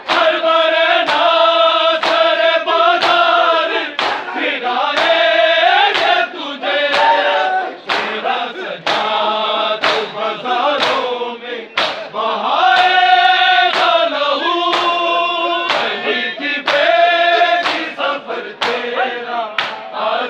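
A crowd of men singing a noha (Shia lament) together, with sharp slaps of hands striking bare chests in unison (matam), about once a second.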